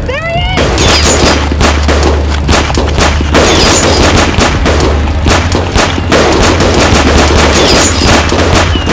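Rapid, sustained gunfire, shot after shot in ragged bursts, over a steady low drone. It opens with a short rising pitched sound before the shooting starts about half a second in.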